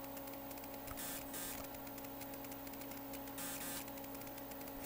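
Steady electrical hum made of several constant low tones, under hiss, with faint irregular crackling clicks.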